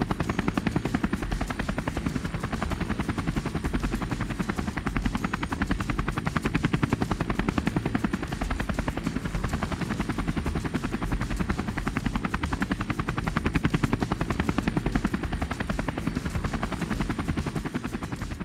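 Helicopter rotor sound effect: the blades give a steady, rapid, even chop.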